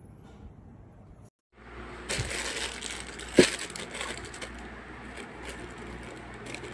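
Crinkling and crunching of a package being handled, starting after a brief cut to silence, with many small clicks and one sharp crack about three and a half seconds in.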